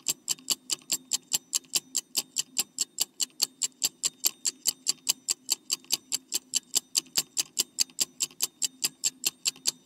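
Countdown-timer ticking sound effect: even, rapid clock ticks, about five a second, over a faint low hum.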